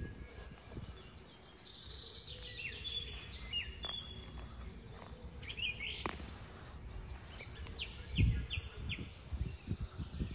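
A gloved hand scraping and rustling through loose forest soil, with a thump about eight seconds in. A small bird chirps in the background, in several runs of short high notes.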